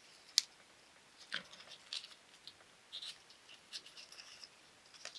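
Faint rustling, scratching and light taps of cut cardstock being handled as its glued tabs are pressed together, with a single sharp click about half a second in.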